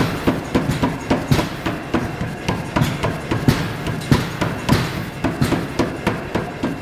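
Mechanical trip hammer striking hot metal in a quick, even run of blows.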